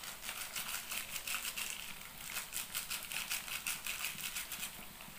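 Small plastic seasoning sachet crinkling as it is handled and emptied into a pot: a quick, uneven run of crackles that stops near the end.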